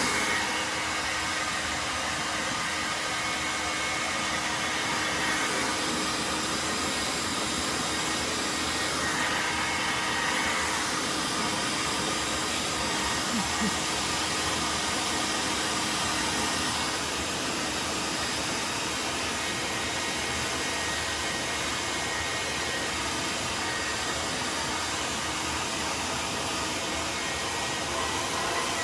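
Hair dryer running steadily, blowing without a break.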